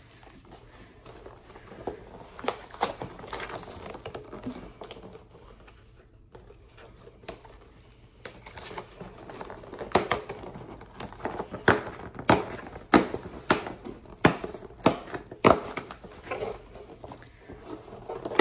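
A taped cardboard shipping box being torn open by hand: cardboard and tape ripping, with crinkling and rustling. Scattered at first, then a busier run of sharp rips and knocks from about halfway through.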